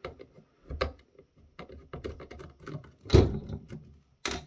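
Small clicks and taps of a precision screwdriver and plastic parts as tiny screws are backed out of a fish finder's clear plastic housing, with a louder knock about three seconds in and another near the end.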